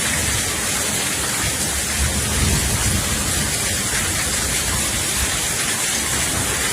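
Heavy rain falling steadily, with a low rumble swelling briefly about two to three seconds in.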